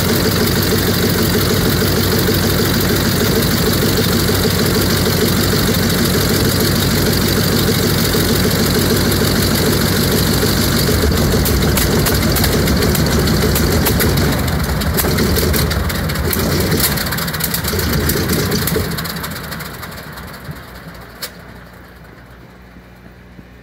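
A P-47 Thunderbolt's Pratt & Whitney R-2800 18-cylinder radial engine runs steadily on its first start after months of sitting, clearing oil from the lower cylinders and supercharger. About fifteen seconds in it is shut down, and the sound falls away over several seconds as it winds to a stop.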